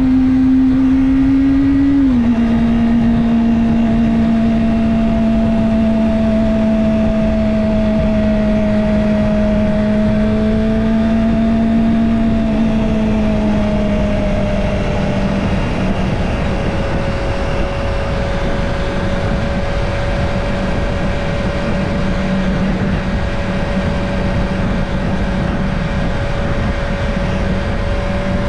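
Kawasaki Ninja ZX-25R's 250 cc inline-four engine running at steady high revs under way. Its pitch steps down sharply about two seconds in, sinks gradually around the middle, and starts climbing again near the end, over a steady low rush of road and wind noise.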